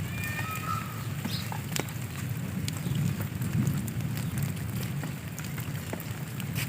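Rainwater running after a downpour: a steady rushing water noise with a low rumble and scattered faint clicks.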